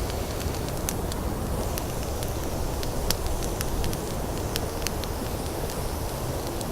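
Campfire crackling, with scattered sharp pops, over a steady low rumble of wind.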